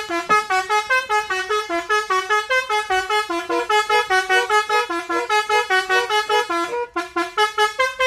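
Telolet basuri air-horn set on a mini truck playing a fast melody of short stepping notes, several a second, breaking off briefly near the end before starting again.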